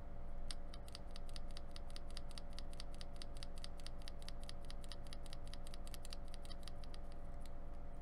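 A Tai-Hao ABS doubleshot keycap on a single loose Cherry MX-style switch, pressed rapidly by thumb for a sound test. Quick plastic clacks come about six a second, starting about half a second in and thinning out near the end.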